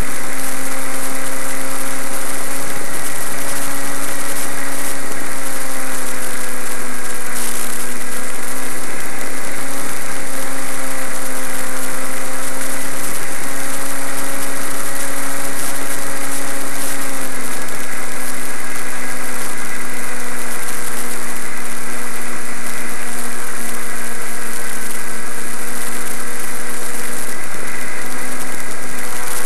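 Motor and propeller of a Zagi flying-wing RC plane heard from on board in flight: a steady, loud hum that wavers slightly in pitch and settles a little lower just past halfway, over a constant rush of air.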